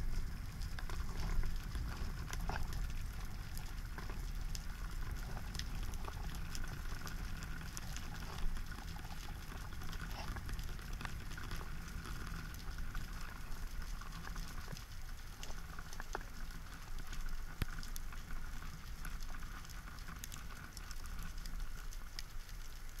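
Underwater ambience on a rocky reef: a dense, steady crackle of tiny clicks over a low rumble, with one short knock about eight seconds in.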